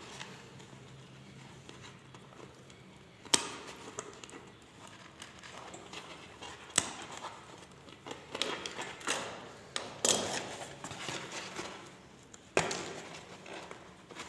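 Hand handling noise from a subwoofer voice coil being worked free where it is sticking: scattered sharp clicks and knocks, about four loud ones, with rubbing and scraping between them.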